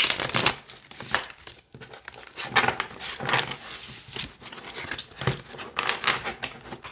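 A tarot deck being shuffled by hand on a wooden tabletop: an uneven run of quick papery card flicks, slides and taps as the two halves are riffled and pushed together, with a short pause about two seconds in.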